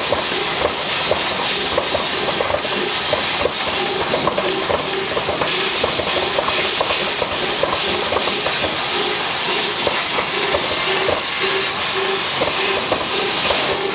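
TRUMPF CNC laser cutter cutting steel sheet: a loud, steady hiss of the cutting process, with short repeated chirps and clicks, the chirps coming about twice a second in the second half.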